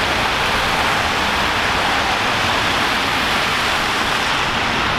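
Street traffic passing on a wet road: a steady hiss of tyres on wet asphalt.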